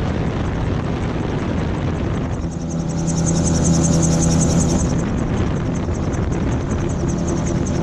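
MT-03 gyrocopter in flight: a steady engine drone with a fast rhythmic flutter. The engine tone grows clearer and a little louder about three seconds in.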